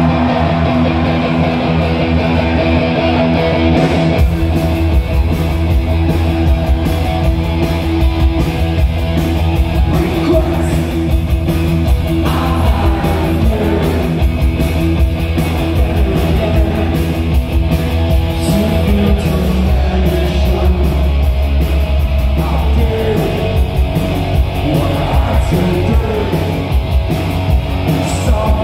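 Live punk rock band playing: a lone electric guitar at first, then drums and bass come in about four seconds in, with a man singing over the full band.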